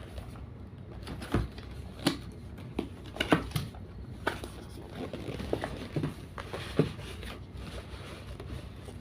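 Handling of a cardboard box and its packaging: scattered knocks, clicks and rustles at uneven intervals as the box is opened and its contents taken out.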